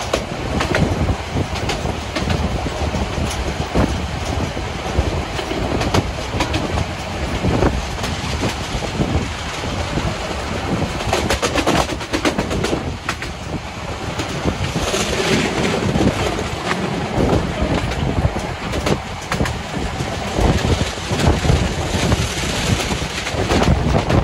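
Narrow-gauge steam train running along the track, its wheels clattering over the rail joints with many short clicks, and a brief rush of hiss about fifteen seconds in.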